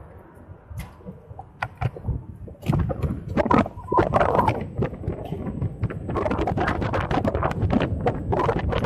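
Rattling knocks and wind rumble picked up by the microphone of a helmet-mounted 360 camera on a moving electric scooter. The sound gets louder and busier about two and a half seconds in.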